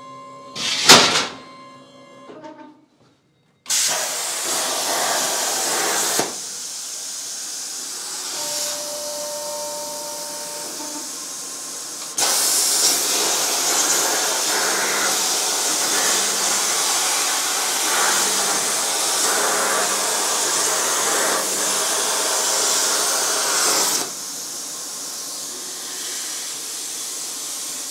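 CNC plasma cutter cutting 2 mm aluminium sheet: a sharp clack about a second in, then the plasma torch's steady hiss starting around four seconds in. The hiss drops to a quieter level after about two seconds and comes back loud for about twelve seconds in the middle before falling back again.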